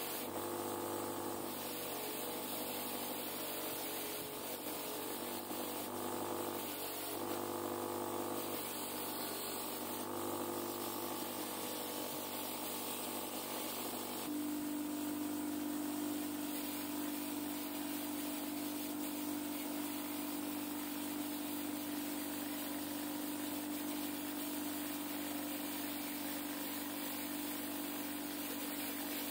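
Bench grinder motor running steadily, with a part held against its spinning disc wheel. About halfway through a strong steady hum comes in and holds.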